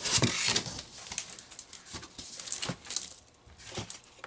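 Styrofoam packing being pulled out of a shipping box, rubbing and crunching in a string of scratchy bursts, the loudest in the first second.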